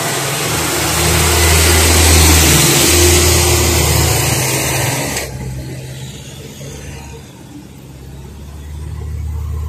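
Engine of a log-laden light truck running under heavy load, a steady low drone. For the first five seconds a loud hiss lies over it, then cuts off suddenly, leaving the engine alone; it grows louder again near the end.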